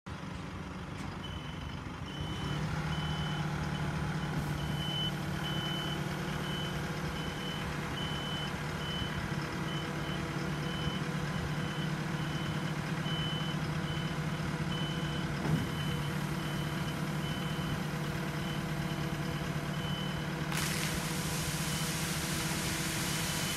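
Truck-mounted Novarini Supermidicar waste compactor body tipping to unload: the truck's engine and hydraulics run with a steady hum that steps up about two seconds in, under a repeated high warning beep. There is one knock partway through, and near the end water gushing from the tipped body splashes onto the pavement.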